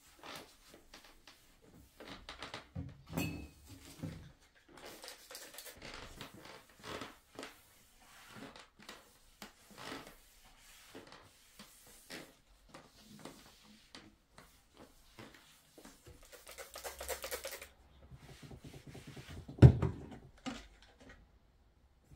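Cloth wiping a table top, with scattered rubs, taps and knocks of small objects being lifted and set down. One sharp knock near the end is the loudest sound.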